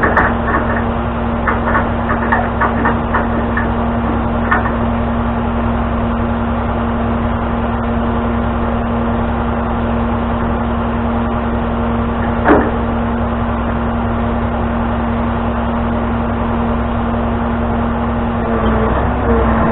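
A tow truck's engine running with a steady hum, with a few light knocks and rattles in the first few seconds and one sharp knock about twelve seconds in.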